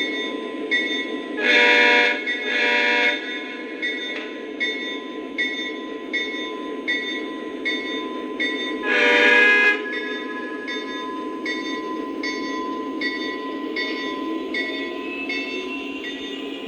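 Lionel Legacy SD50 model diesel's onboard sound system: the diesel engine runs steadily while the bell rings about every half second. Two short horn blasts come about a second and a half in, and another horn blast at about nine seconds. Near the end a rising whine comes in as the engine sound revs up.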